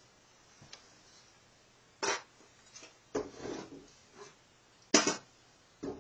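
Hand tools knocking and clinking against the metal of a Nissan VQ30DE V6 engine as its timing cover is worked off: about four sharp knocks spread over the seconds, one followed by a short rattle, the loudest about five seconds in.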